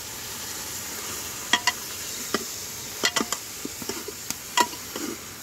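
A metal ladle stirring pieces of sheep meat in an aluminium pot, clinking sharply against the pot's sides about six times over a steady hiss of the meat cooking.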